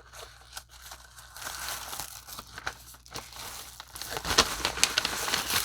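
Shipping packaging being opened and handled by hand: crinkling, rustling and some tearing, getting louder and busier near the end.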